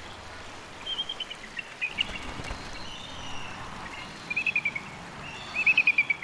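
Bald eagle giving high, chattering calls: short runs of rapid piping notes, with two longer runs of six or seven quick notes, each dropping slightly in pitch, in the second half.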